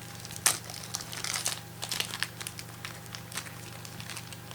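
Crinkling and rustling of a trading-card pack wrapper and cards being handled, with irregular small crackles and one sharper crackle about half a second in.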